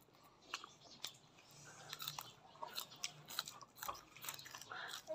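A person chewing and biting food close to the microphone, a string of short, soft crunches and clicks.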